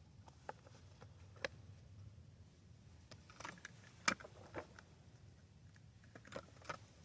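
Faint scattered clicks and light taps over a low steady hum, with one sharper click about four seconds in: small handling noises, with no engine running.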